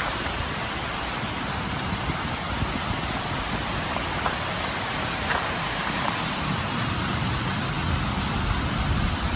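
Steady outdoor rushing noise, even and hiss-like, with a few faint short high sounds about four to six seconds in.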